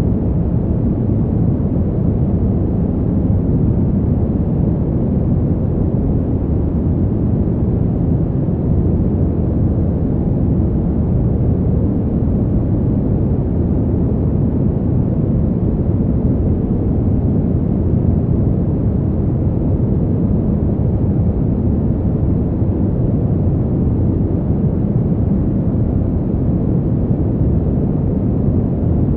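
Fan heater blower running steadily: a continuous, low rush of air with most of its weight in the bass and no hiss on top, unchanging throughout.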